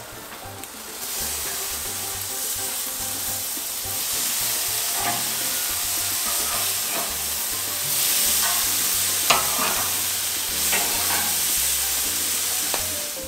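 Marinated chicken sizzling on a braai grill, a steady frying hiss that swells about a second in, with scattered sharp crackles of spitting fat, the loudest about nine seconds in.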